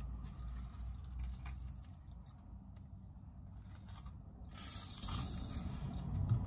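Aerosol can of PB Blaster penetrating oil spraying, a hiss, onto a rust-seized rudder post to loosen it. A faint short spray comes early, then a louder, longer spray begins about four and a half seconds in.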